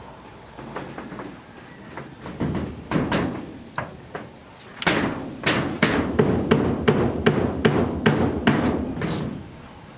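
Hammer blows: a few scattered knocks, then from about five seconds in a steady run of strikes, about three a second, that stops near the end.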